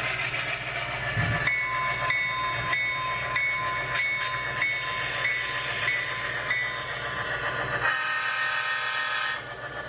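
Model diesel locomotive's sound unit playing a steady diesel engine rumble, with its bell ringing about one and a half times a second for around five seconds, then a horn blast of about a second and a half near the end.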